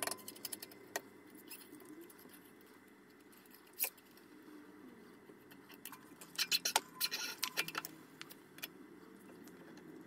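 Small metallic clicks and clinks of a steel brake cable and mechanical disc brake caliper being handled: a few scattered clicks, then a quick flurry of clinks about six to eight seconds in.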